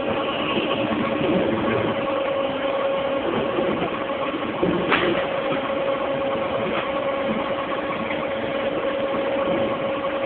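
Dewatering screw press running steadily: a constant motor hum with a steady whine over it, and a single sharp click about five seconds in.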